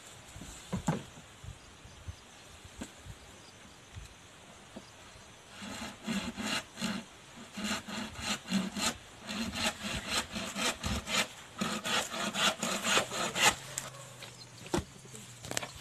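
Saw cutting through a bamboo pole: a steady run of rasping back-and-forth strokes, about two or three a second, that starts a few seconds in and stops shortly before the end. Before it there are only a few light knocks.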